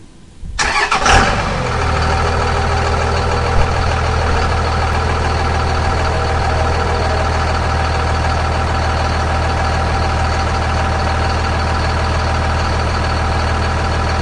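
Duramax 6.6-litre turbodiesel V8 of a 2008 GMC Sierra 2500HD starting: a brief crank about half a second in that catches within a second, then settles into a steady idle.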